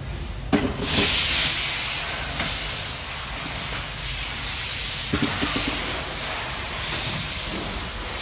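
A steady hiss, with short knocks of plastic copier parts being handled about half a second in and again about five seconds in.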